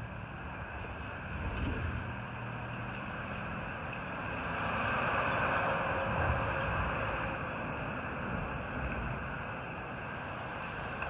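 LiftMaster electric gate opener driving a 20-foot steel sliding gate open: a steady mechanical hum and rolling noise, with a louder rushing swell about halfway through.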